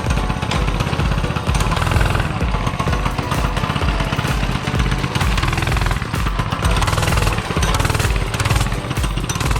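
Loud background music with a steady, driving beat.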